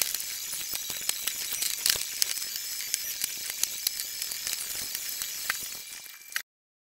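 Sped-up sound of judo mats being laid: knocks and footsteps squeezed into a rapid, high-pitched clatter of ticks over a hiss. It cuts off suddenly near the end.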